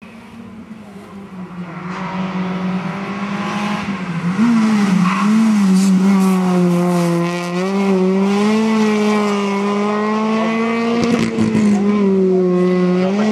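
Renault Clio Williams rally car's 2.0-litre four-cylinder engine running at high revs, growing louder over the first few seconds as the car approaches at speed. The revs fall and rise several times as it goes through the stage.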